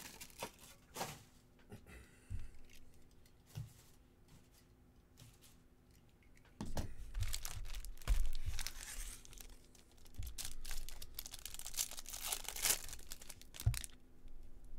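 A baseball card pack's foil wrapper being torn open and crinkled, with light taps of cards being handled. A few scattered taps come first, then a quiet gap, then longer stretches of tearing and crinkling in the second half.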